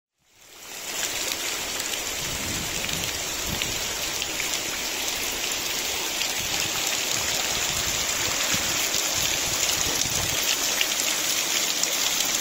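Heavy downpour: rain falling hard in a steady, dense hiss, fading in from silence over the first second.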